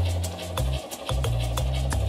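Background music: a bass line moving between low notes under a steady clicking beat of about four ticks a second.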